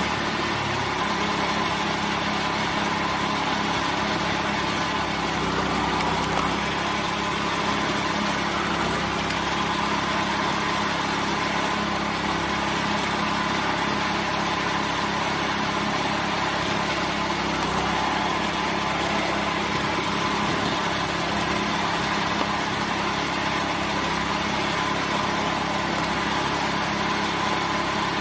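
Small single-cylinder gasoline engine running steadily, spinning a homemade screw-cone log splitter through a belt and pulley with no log on the cone, so the engine is unloaded.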